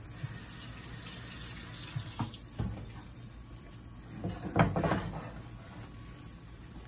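Eggplant omelette patties sizzling in shallow oil in a frying pan, a steady hiss. A silicone spatula knocks and scrapes against the pan a few times, most loudly about two thirds of the way through.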